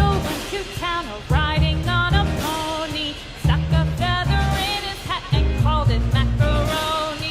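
Background pop song with a female-range sung melody over a steady beat and bass line.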